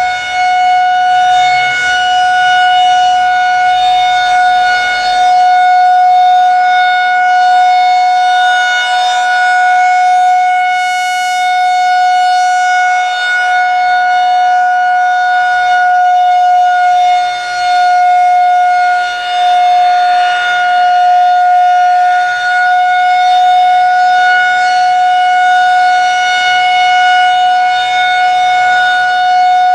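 Federal Signal 2001-130 outdoor warning siren sounding a steady, loud single-pitch alert tone, its upper overtones brightening and fading about every ten seconds.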